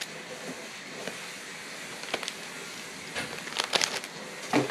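Handling of trading card packs and cards: a few short crinkles and clicks, about two seconds in, a cluster a little after three seconds, and one more near the end.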